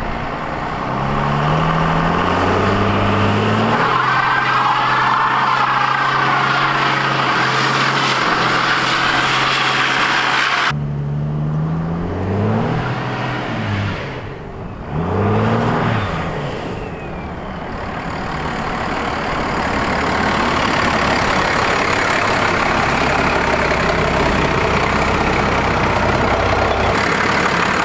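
First-gen Dodge Ram's compound-turbo Cummins inline-six diesel accelerating hard: the revs climb and drop back with each upshift, then hold in a long pull with a turbo whistle rising and falling over it. Partway through, the sound cuts abruptly to another run of climbing revs, and it ends with the diesel running steadily.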